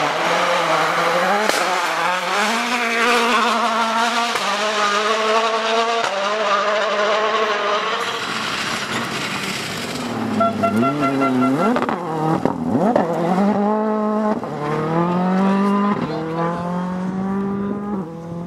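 Rally car engine accelerating hard through the gears: the pitch climbs and drops back at each upshift, many times over, with a quick rise and fall of revs around the middle.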